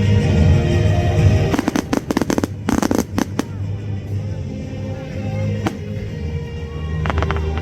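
Fireworks going off in a rapid cluster of sharp bangs about two seconds in, with a few more near the end, over music.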